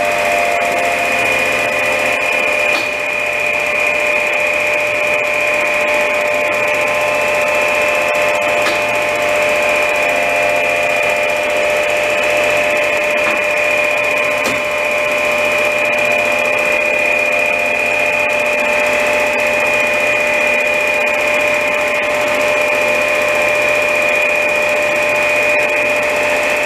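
Myford MG12 plain cylindrical grinder running under power, giving a steady high whine over a lower motor hum.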